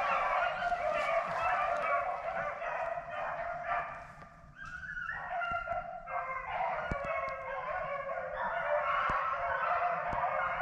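A pack of rabbit hounds baying in chorus as they run a rabbit, many dogs giving voice at once. The chorus thins out about four seconds in, then swells again.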